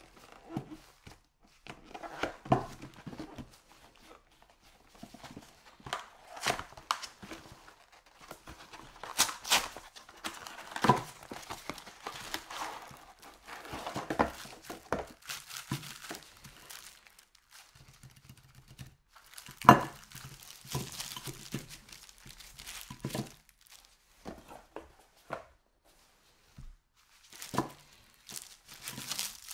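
Cardboard packaging and plastic film being handled and torn open: irregular rustling, tearing and crinkling as two frozen baguettes are taken out of their box and unwrapped, with scattered knocks against a plate. The sharpest knock comes about two-thirds of the way through.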